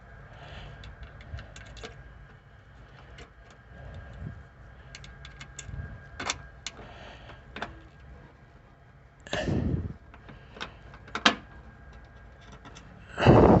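Hand tools and small metal hardware being handled: scattered light clicks and taps, with a louder scrape or rustle about nine seconds in and again near the end.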